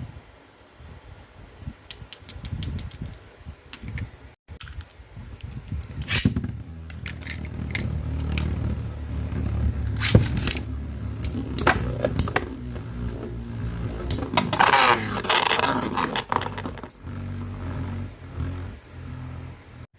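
Metal Fight Beyblade tops Lightning L-Drago 105HF and Rock Leone 145WB spinning in a plastic stadium, a steady low whir broken by sharp clacks as they collide. A quick run of clicks comes about two seconds in, before the spinning starts.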